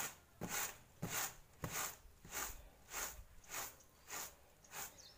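Flattened rice (poha) being winnowed in a winnowing tray: the flakes swish and land with each toss, in about nine even strokes roughly every 0.6 s, shaking the husk out of them.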